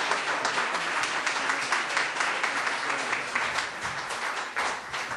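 Audience applauding at the end of a told story, the clapping slowly dying down toward the end.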